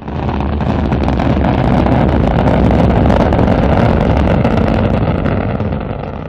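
Rocket engine burn sound effect: a steady, deep rushing noise that swells back after a brief dip at the start and fades away near the end.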